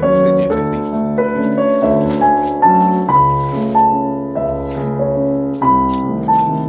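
Background piano music: a melody of separate notes, a few each second, over lower held notes.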